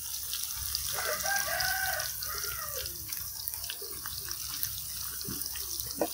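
Vegetarian mock-mackerel pieces frying in hot oil in a pan: a steady sizzle with scattered crackles. About a second in, a rooster crows once for nearly two seconds, the loudest sound here. A sharp knock comes just before the end.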